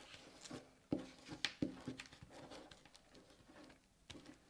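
Faint rubbing of a glue stick being spread across paper, with a few light taps and clicks, the sharpest about a second in.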